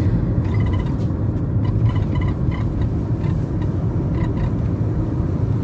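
Road and engine noise heard inside the cabin of a moving car: a steady low rumble.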